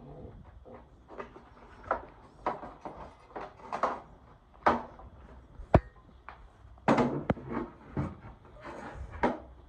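Irregular knocks, clicks and scraping of parts and tools being handled, with one sharp, loud knock a little over halfway through.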